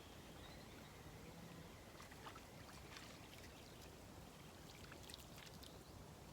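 Faint sound of river water, with a scattering of light clicks and ticks from about two seconds in.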